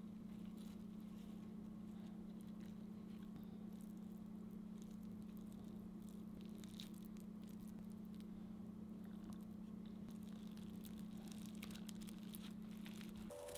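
Faint soft clicks and rustles of hands placing gimbap fillings and lifting a bamboo rolling mat, over a steady low hum.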